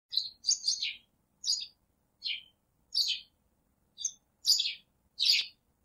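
A bird chirping: a series of short, high chirps, each well under half a second, with clean gaps of silence between them.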